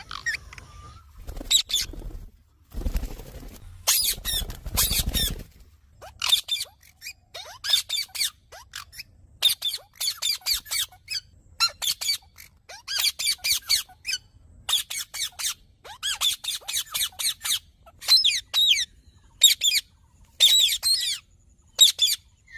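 Indian ringneck parakeet calling in repeated bursts of rapid, high, squawky chirps, each burst lasting about half a second with short gaps between. A low rumbling noise overlaps the calls about three to five seconds in.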